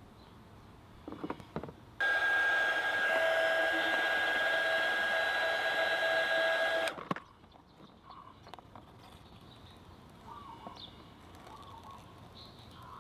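Mini 300-watt heat gun switched on, running steadily with a high fan whine for about five seconds, then switched off suddenly. It is warming a sticker's adhesive on the scooter's plastic cover so the sticker can be peeled off without damaging the paint.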